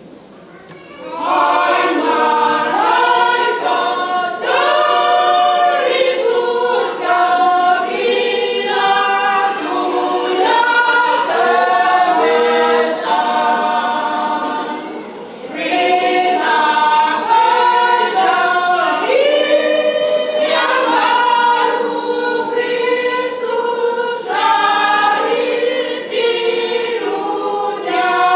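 Women's church choir singing, coming in about a second in, with a brief pause between phrases about halfway through.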